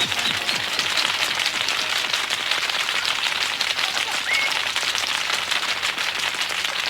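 Music and squeaky noises sped up so far that they blur into a dense, crackling hiss like rain, with only a brief squeaky rising glide about four seconds in.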